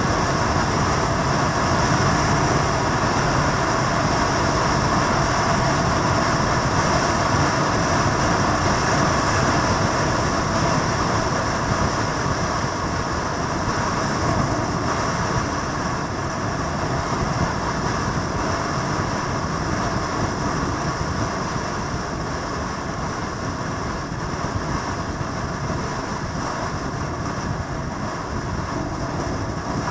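Steady, continuous vehicle noise, a dense rumble with some steady tones in it, easing off slightly in the second half.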